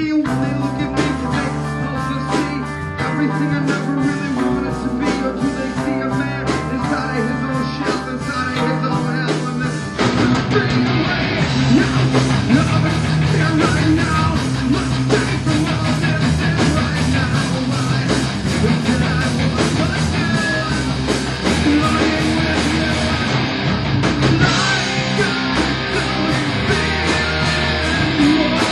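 Rock band playing at a practice, electric guitar and drums. About ten seconds in the sound grows fuller and louder.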